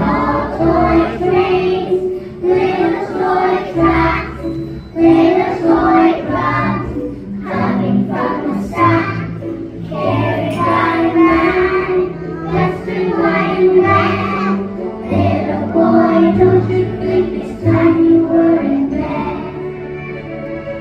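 Old toy train playing a children's song through its built-in speaker: a child-like singing voice over a bouncy musical backing.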